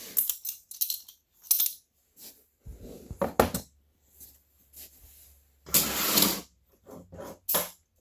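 Butterfly knives being opened by hand: sharp metallic clicks and clacks of the handles swinging around the blades and the knives being set down, with a longer rattling scrape about six seconds in.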